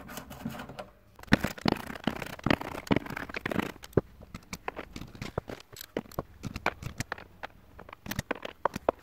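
Irregular small metal clicks and scrapes of a socket tool and fingers working the tiny hex nuts on the potentiometer shafts of an amp's metal control panel, busiest between about one and four seconds in.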